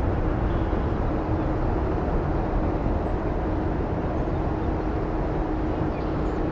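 Airbus A330-243 twin Rolls-Royce Trent 772B turbofans at takeoff thrust, a steady jet rumble as the airliner rotates and lifts off.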